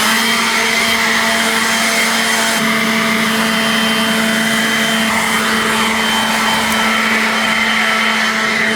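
Leaf blower running at a steady speed: a constant motor hum under the rush of air from the fan.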